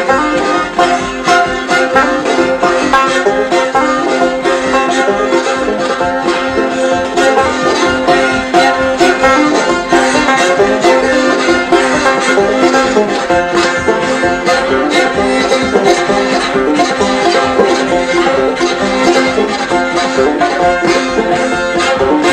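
Old-time banjo playing an instrumental break, a quick run of plucked notes over a steady drone.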